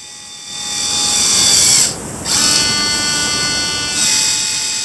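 Small N20 gear motors of a 1/32-scale RC wheel dozer's blade-lift actuators whining as they drive. They run in two stretches with a short break about two seconds in, which fits the blade being raised and then lowered.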